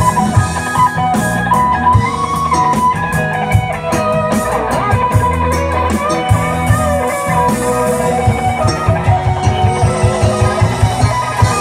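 Live band playing an instrumental passage: violin and electric guitar over keyboard and drums, with a run of quick, even drum beats in the last few seconds.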